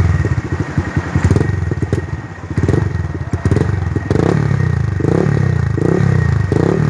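Honda Monkey 125's single-cylinder four-stroke engine running through an aftermarket exhaust, idling with a steady beat, then revved in a quick series of short throttle blips from a few seconds in.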